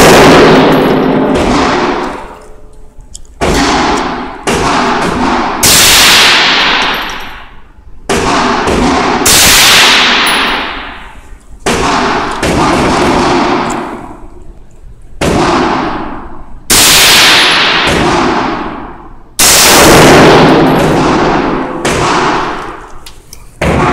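AR-15-style rifle firing single shots, about a dozen, one every one to three seconds, each echoing for a long moment off the concrete walls of the indoor range lane.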